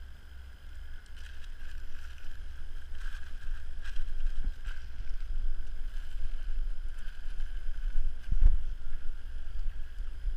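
Wind buffeting the microphone: a low, gusty rumble that rises after the first couple of seconds and is strongest in a gust about eight seconds in.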